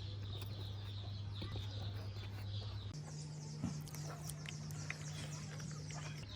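Faint background of birds calling over a steady low hum; the hum jumps to a slightly higher pitch about three seconds in, with a few small clicks.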